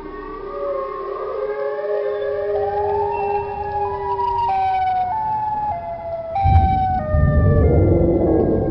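A wolf howl over eerie synth music: gliding tones rise slowly over the first few seconds, then give way to a string of held notes that step downward. A loud low rumble comes in about six and a half seconds in.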